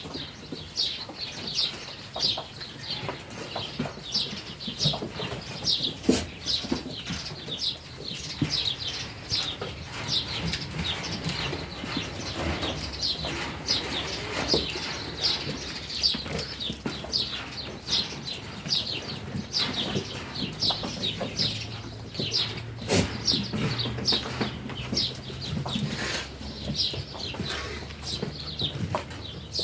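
Barn ambience: small birds chirping rapidly and without a break, two or three short high chirps a second, over a resting flock of sheep, with a few sharp knocks as the animals move.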